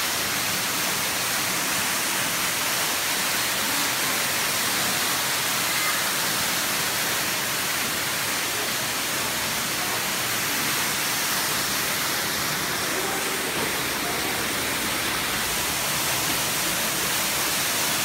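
Underground waterfall inside a cave, water falling and splashing onto rock with a steady, unbroken rush.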